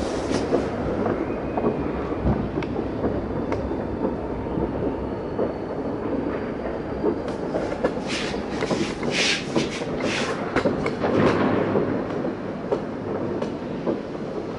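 Distant fireworks salute fired from launcher vehicles: a dense, unbroken run of bangs and crackles merging into a rolling rumble, with a thicker cluster of sharp cracks about eight to eleven seconds in.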